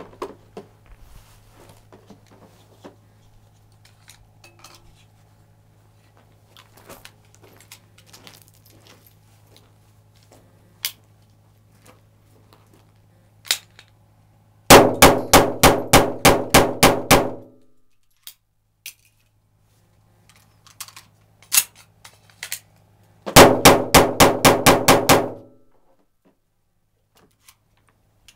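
CZ52 pistol in 7.62x25mm Tokarev firing two rapid strings of shots, about three shots a second. The first string of about nine shots comes about halfway through and is followed by a few metallic clicks of a magazine change. A second string of about eight shots comes near the end.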